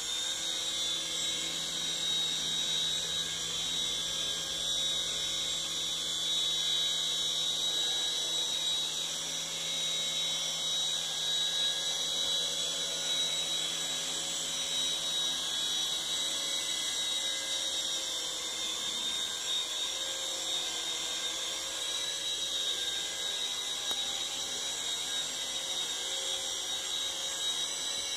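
Toy RC helicopter's small electric motor and rotor running with a steady high-pitched whine.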